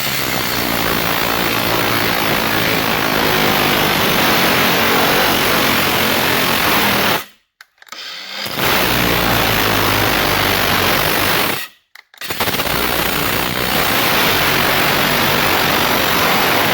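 Cordless power tool cutting through a water supply line where the hose meets its brass fitting, running loud and steady in three long spells with two brief stops. It stops about a second before the end, with its battery going flat.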